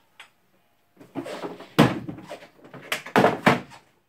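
Clatter with about four sharp, loud knocks and bangs between about two and three and a half seconds in, like something heavy being shifted or a door or cabinet knocked.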